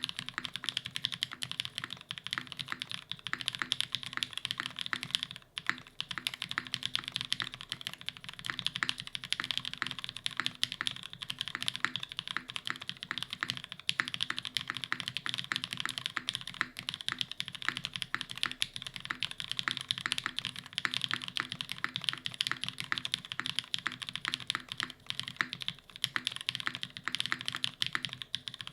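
Fast continuous typing on a custom mechanical keyboard: linear Cherry MX Black housings with Kailh black stems, lubed and filmed, on an aluminium plate with no dampening, under GMK Umbra doubleshot ABS keycaps. A dense stream of key clacks with a deeper bottom-out thock beneath, with a brief pause about five and a half seconds in.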